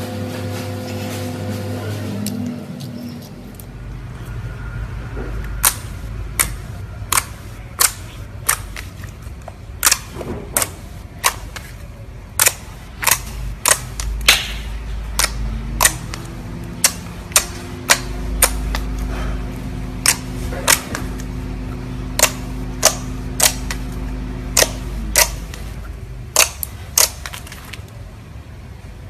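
Slime being squeezed and poked, giving a long series of sharp popping clicks, about one or two a second. The pops run over low sustained tones of background music.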